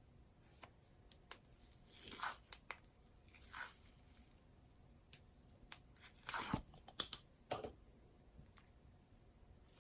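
Cloud slime being stretched and pulled apart by hand: faint tearing and crackling in several short swells, with scattered small clicks and pops.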